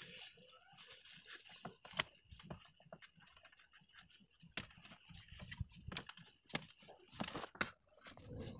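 Faint scattered clicks and light rustles, with a few soft low thumps in the second half.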